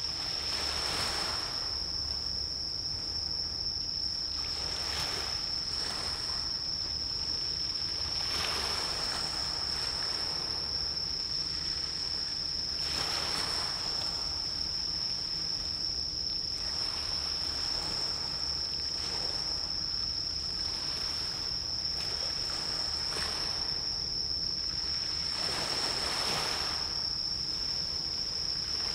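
Waves washing in every few seconds over a continuous high-pitched insect trill, with a low steady rumble underneath.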